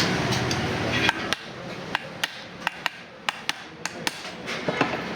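Sharp hand-hammer taps, about ten of them at uneven intervals, starting about a second in.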